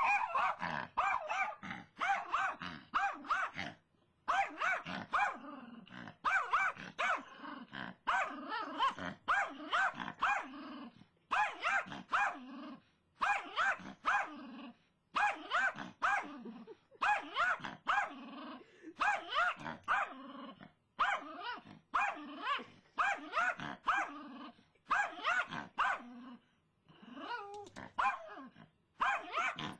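Pet dog barking excitedly at a squirrel it has spotted, in quick runs of several barks with short breaks between the runs.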